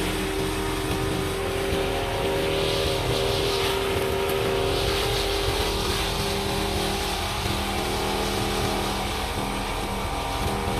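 Backpack brush cutter's small petrol engine running steadily at high speed while its trimmer head cuts grass, with hissy swells of cutting noise a few times near the middle.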